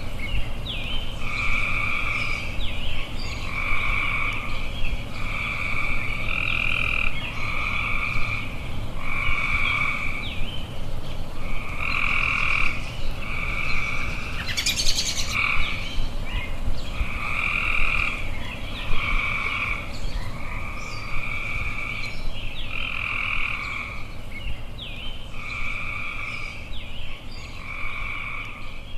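Frogs calling: the same croaking call repeated about every second and a half over a steady low background hiss, with a brief sharper sound about halfway through.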